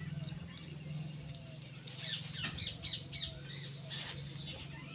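Birds chirping and squawking in short falling calls, over a steady low hum.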